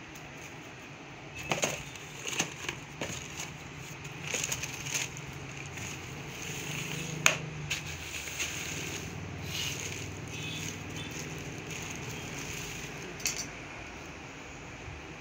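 Packaging being handled: paper and plastic rustling with scattered clicks and taps, one sharp tap about seven seconds in, over a steady low background hum.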